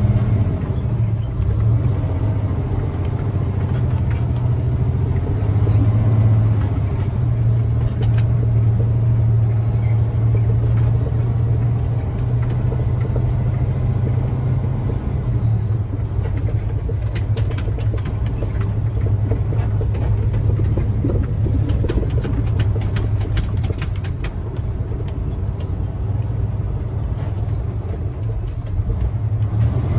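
International truck's diesel engine running steadily under load while driving through mud, with a deep, continuous drone. Through the middle there are clusters of quick clicks and rattles.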